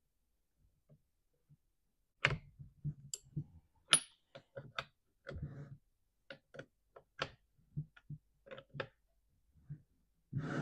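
Scattered light metal clicks and clinks of a chainsaw bar and chain being fitted: chain links rattling against the bar and a scrench clinking on the bar nuts, with one sharper, ringing clink a few seconds in.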